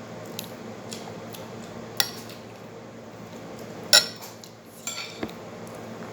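Cutlery clinking and scraping against plates during a meal: a handful of sharp clinks, the loudest about four seconds in, over a steady low background hum.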